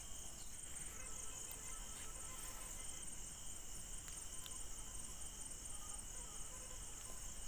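Crickets chirping, a steady high trill with no let-up.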